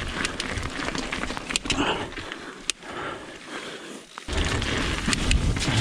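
Mountain bike riding over a loose gravel trail: tyres crunching on stones, with scattered clicks and rattles from stones and the bike. A low wind rumble on the mic fades out for a couple of seconds mid-way and returns strongly about four seconds in.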